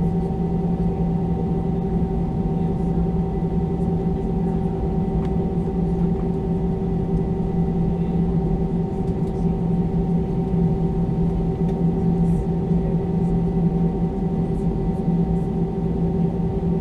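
Cabin drone of an Airbus A320-214's CFM56 engines at a steady low power while the airliner taxis, a constant hum with several fixed tones over a low rumble and no spool-up.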